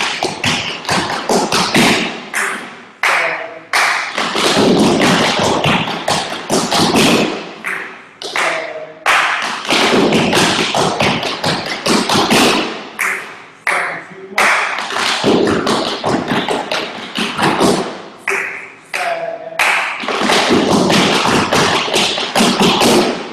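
Tap shoes striking wooden tap boards as several dancers tap in rapid, dense rhythms, in phrases broken by short pauses.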